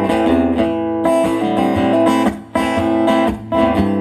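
Acoustic guitar strummed in chords, with two brief breaks in the strumming, about two and a half and three and a half seconds in.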